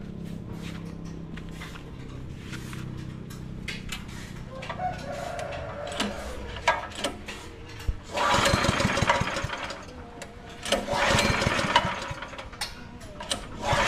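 A small single-cylinder petrol engine (7 hp) driving a grass chopper is started and catches about eight seconds in, running loudly. It drops back briefly around ten seconds, then picks up again.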